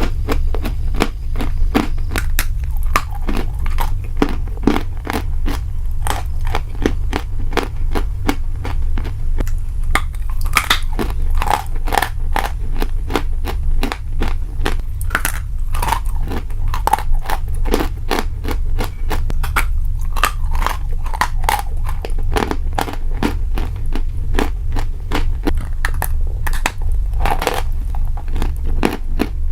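Close-up crunchy chewing and biting: a dense, irregular run of sharp cracks and crackles from crisp food being bitten and chewed, over a steady low hum.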